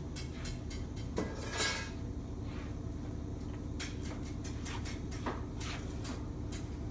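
Scattered light clinks and clicks of small hard objects being handled, over a steady low hum.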